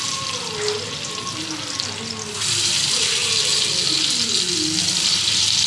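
Hot oil sizzling in a kadhai as pieces of karmi leaf rikwach (leaf rolls coated in gram-flour paste) fry in it. The sizzle grows louder about two and a half seconds in.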